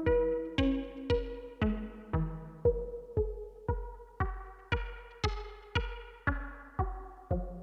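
Cre8Audio West Pest synthesizer playing a sequenced line of short plucked notes, about two a second, each at a different pitch and dying away, with the tone growing brighter and duller from note to note. The notes run through echo, a low-pass filter and reverb, over a low steady bass.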